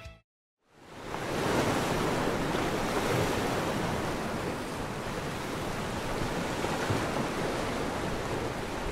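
Steady rushing of sea waves, fading in about a second in after a brief silence, with gentle swells in level.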